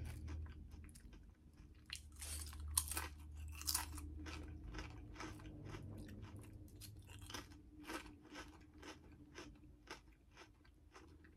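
A person chewing and crunching Lay's Limón lime-flavoured potato chips: a run of many short, crisp crunches, with another chip bitten into partway through.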